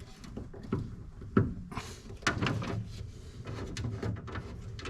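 Handling noise while parts are held and fitted: a few sharp knocks and clicks, the loudest about one and a half seconds in, over rustling and shuffling.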